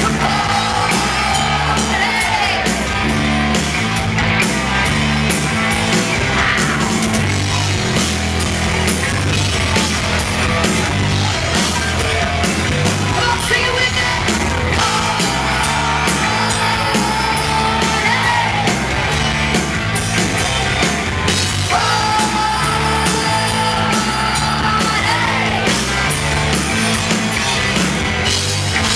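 Live rock band playing loud, with bass, drums and guitar under a female lead singer who holds long sung notes several times.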